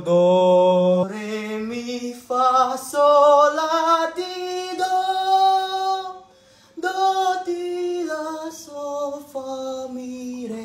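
A man singing an unaccompanied solfa scale. Each note is held, stepping up for about five seconds; after a short break the notes step back down.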